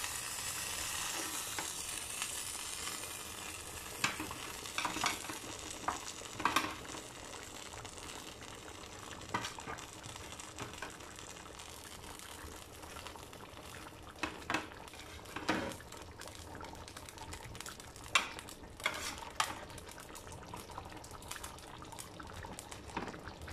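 Chicken simmering in a thin white sauce in a frying pan, with a steady sizzling hiss that eases a few seconds in. Scattered short clicks and taps run through it, from popping bubbles or the utensil against the pan.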